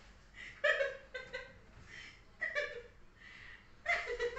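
A person laughing quietly in several short bursts.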